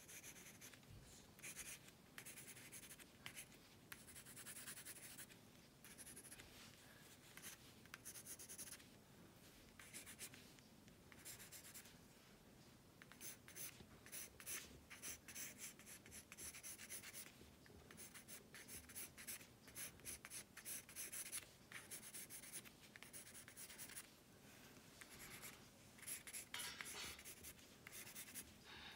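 Faint pencil scratching on paper: quick, short sketching strokes in runs, with brief pauses between them.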